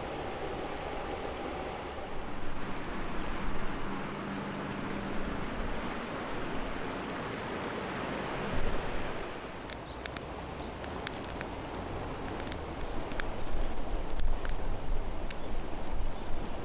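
Wind rushing and gusting on the microphone, with a wood campfire crackling: scattered sharp pops from about halfway in.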